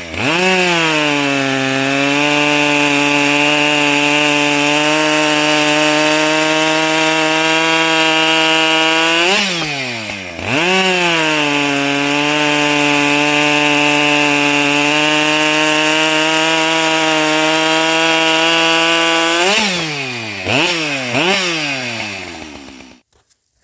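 Husqvarna two-stroke chainsaw with a 20-inch bar running at high, steady revs, its pitch dipping and climbing back near the start and again about ten seconds in. Near the end the revs waver twice, then the engine drops away and stops.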